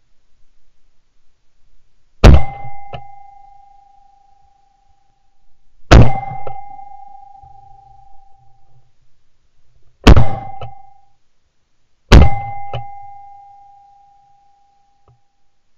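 Four shotgun shots at pigeons, the second about three and a half seconds after the first, then two more about two seconds apart. Each sharp bang is followed by a short ringing tone that fades out.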